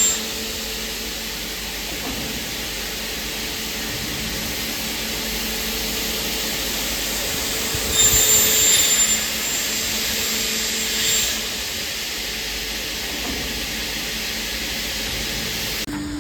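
Aluminium profile sawing, drilling and milling machine running with a steady whirring hiss and a low hum. About eight seconds in it grows louder for about a second with a high whine, and it swells again briefly a few seconds later.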